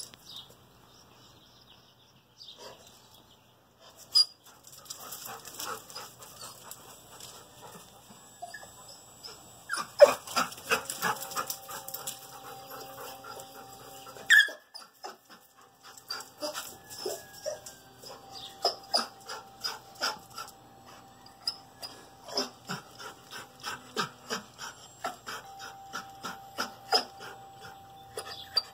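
A dog panting close to the microphone, in quick irregular breaths a few times a second, picking up about ten seconds in, with a faint steady whine underneath.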